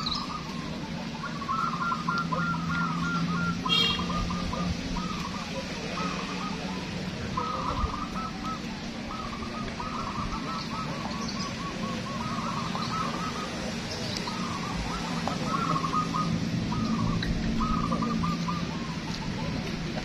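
Many caged zebra doves (perkutut) cooing at once, overlapping phrases of quick soft notes repeating one after another, over a steady low hum. A single short high chirp cuts in about four seconds in.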